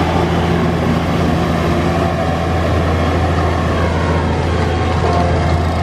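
Fendt Vario 924 TMS tractor's six-cylinder diesel engine running steadily under load as it passes close by, pulling a slurry tanker with its injector working in the soil. A loud, steady low hum under a rough haze of noise.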